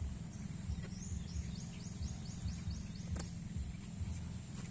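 Low, uneven outdoor rumble of wind on the microphone, with a bird's rapid trill of about nine high, evenly spaced notes in the middle and a faint click a little after.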